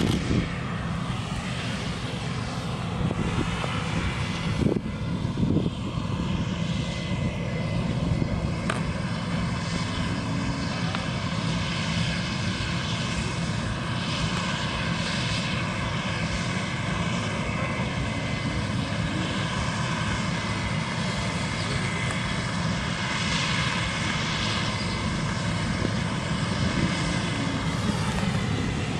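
Combine harvester running as it harvests grain: a steady drone of engine and threshing machinery with several held tones, and a few brief knocks about five seconds in.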